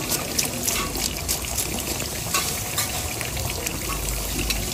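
Hilsa fish frying in hot oil: a steady sizzle with scattered sharp crackles.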